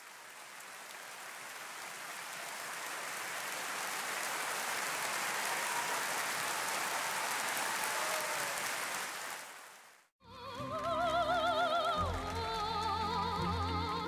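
A large concert audience applauding, swelling up over several seconds and cut off abruptly about ten seconds in. Then a young soprano sings operatically with wide vibrato, with instrumental accompaniment.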